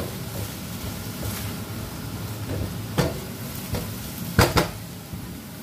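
Cabbage, carrots and pork frying in a non-stick wok with a steady sizzle, while a spatula scrapes and stirs against the pan. A spatula knock comes about three seconds in, then two sharper, louder knocks close together near the end.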